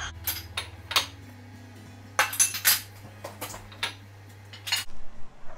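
Ceramic plates and metal cutlery clinking and clattering as dishes are rearranged in a dishwasher: a scatter of sharp clinks, with a quick flurry about two seconds in.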